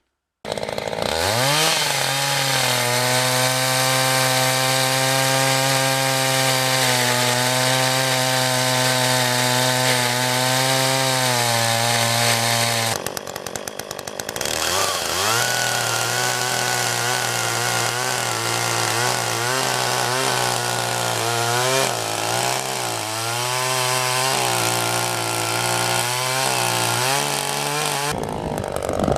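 Two-stroke chainsaw revved up and cutting through a log section, roughing in table legs, its engine pitch held steady under load. About halfway through it drops back to a rattly idle, then revs and cuts again, its pitch wavering and dipping as it works through the wood. It falls back to idle near the end.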